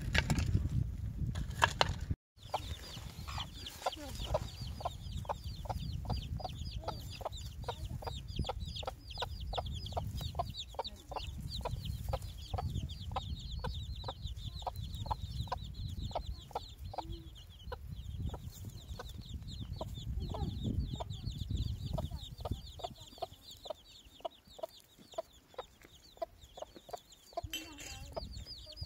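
A hen clucking steadily, about two clucks a second, with a dense, rapid high-pitched chirping running over it.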